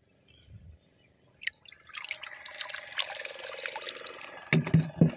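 Shallow water splashing and dripping, followed near the end by several sharp knocks and thumps.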